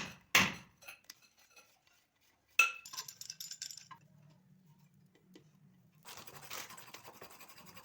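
Hard clinks of metal hand tools and fittings being handled and knocked: two sharp strikes at the start and a third, ringing briefly, about two and a half seconds in. Near the end comes a stretch of scraping and rustling.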